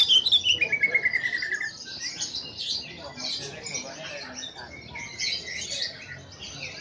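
Cucak ijo (greater green leafbird) singing. A loud, rapid trill falls steadily in pitch over the first second and a half, then gives way to a busy run of varied high chirps and twittering.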